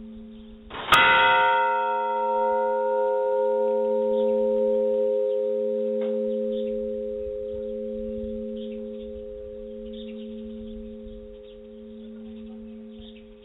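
A large church bell is struck once about a second in, then rings out in a long, slowly fading decay. Its deep hum pulses slowly as it dies away.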